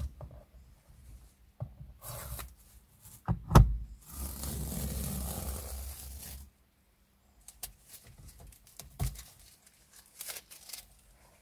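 Masking tape being peeled off a leather armrest: a few short rips and a sharp knock, then one long steady peel lasting about two and a half seconds, followed by light clicks and rustles of the gloved hand.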